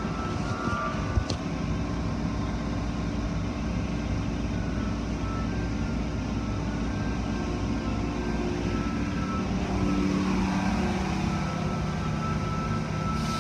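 Automatic tunnel car wash running: the steady rumble and wash of spinning brushes and water sprays, heard through the glass of the viewing window. A sharp click about a second in, and a machine hum that swells and bends in pitch around ten seconds in.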